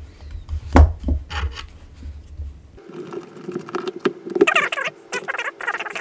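A small plastic speaker casing being prised apart: a few sharp knocks and taps over a low hum, then, after the hum cuts off about three seconds in, rapid scratching and squeaking of plastic parts rubbing and being levered against each other.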